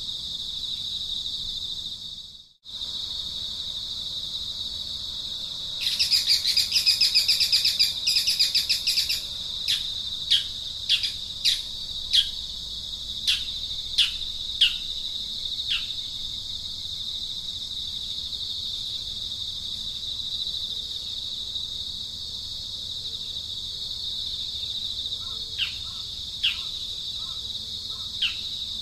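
Steady high-pitched insect drone. A bird calls over it, first a burst of rapid trilling about six seconds in, then a string of sharp falling chirps, and a few more chirps near the end. The sound cuts out briefly about two seconds in.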